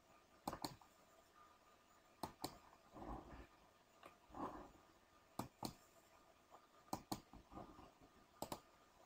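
Computer mouse buttons clicking faintly: five quick pairs of clicks, each pair a press and release a fraction of a second apart.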